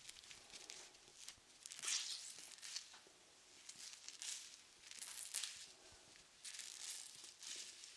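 A soft fluffy brush or pad brushed close against the microphone in irregular strokes: a string of short, airy swishes, with a longer stretch of brushing near the end.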